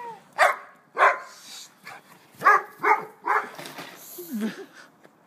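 A dog barking in play, about five short, sharp barks in the first three and a half seconds, followed by a brief lower sound near the end.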